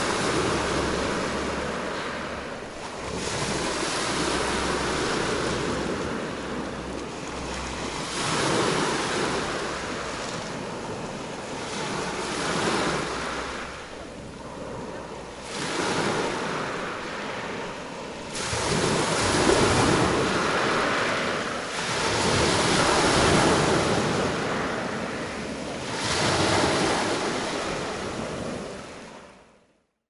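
Black Sea waves breaking on the shore, the surf swelling and easing about every three to four seconds, with some wind on the microphone. The sound fades out in the last second.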